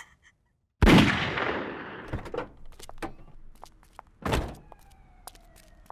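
A single loud gunshot about a second in, its echo dying away over about a second. A second, shorter thud follows a few seconds later.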